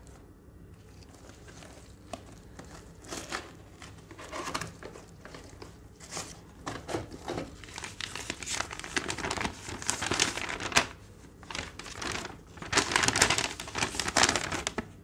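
Paper and cardboard packaging handled with gloved hands: irregular rustling and crinkling. It is loudest near the end as the folded paper instruction sheet is pulled out and opened.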